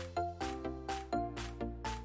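Background music with a steady beat of about four strikes a second over a bass line and short pitched melody notes.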